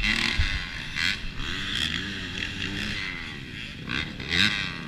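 Several dirt bike engines idling and blipping their throttles, their pitches rising and falling against each other, with a quick rising rev about four seconds in.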